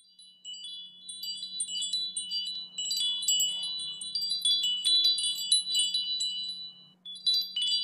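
Wind chimes tinkling: many high, overlapping ringing tones struck at random, with a brief lull about seven seconds in. A faint steady low hum sits beneath.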